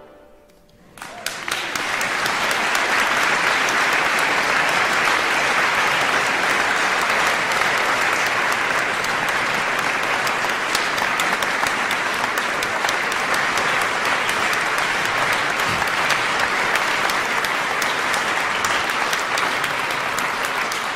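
A large audience applauding, starting about a second in and holding steady.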